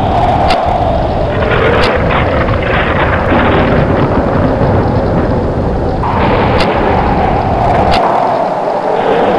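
Storm sound effect of strong wind: a steady roar with a howling whistle that falls in pitch, heard twice, and a few sharp cracks, two early and two in the second half.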